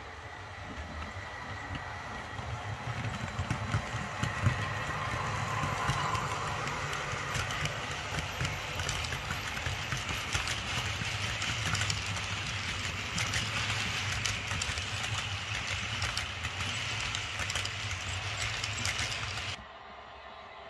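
Model container train running past on the layout track: a steady rumble of wheels and motor, with rapid clicking of the wagons' wheels over rail joints, getting louder a few seconds in and cutting off abruptly near the end.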